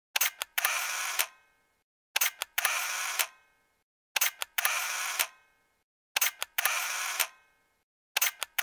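Camera shutter sound effect, repeated about every two seconds: each time a quick double click, then a short motor whir of the film advance ending in a click, with dead silence between.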